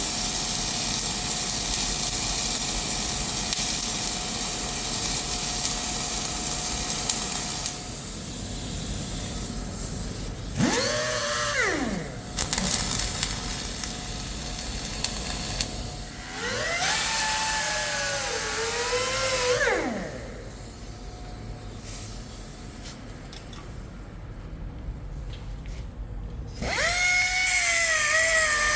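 Power tool work on the welded cylinder rod: a steady hiss for the first several seconds, then three bursts of an angle grinder whining up to speed, its pitch sagging under load. The first burst winds down steeply when it stops.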